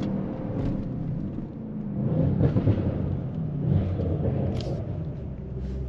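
Tuned twin-turbo 4.0-litre V8 of an Audi RS7 C8 coming off the throttle after a full-power pull. Its tone falls away at the start, then turns into an uneven rumble with a few brief sharp sounds.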